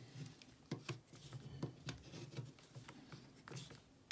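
Wera Kraftform Kompakt torque screwdriver tightening a terminal screw on an RCBO: faint irregular scratching and ticking of the bit turning in the screw head and the hands working the breaker. A sharper click right at the end, the torque limiter slipping as the set torque is reached.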